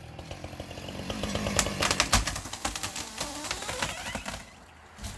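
A felled tree coming down: wood cracking and snapping as the trunk gives way, with a heavy thud about two seconds in, over a chainsaw left idling.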